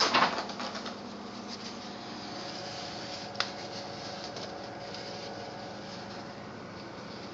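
A dog's claws scratching and scrabbling on tile at the gap under a door, a loud rustling burst in the first second, then a steady hum with one sharp click about three and a half seconds in.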